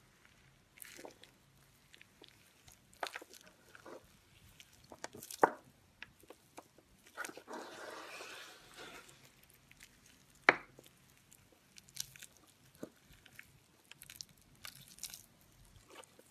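Crumbled soap crushed and squeezed between the hands: scattered sharp crunches and cracks, the loudest about five and a half and ten and a half seconds in, with a longer grainy crunching stretch around eight seconds in.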